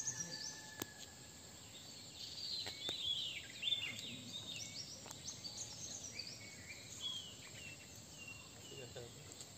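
Wild birds chirping and calling over a quiet forest background: many short whistled notes that rise and fall, thickest in the middle few seconds, with a few faint clicks.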